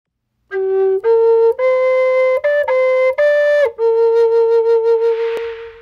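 Wooden flute playing a short, slow melody: a handful of single notes, then one long low note held with a slight waver that fades away near the end. A soft hiss joins briefly near the end.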